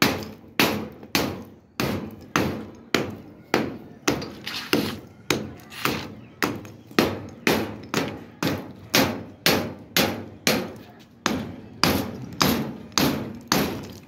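Hand hammer striking the base of a brick doorpost and door frame in a steady rhythm of about two blows a second, each a sharp knock that dies away quickly, chipping out brick and mortar.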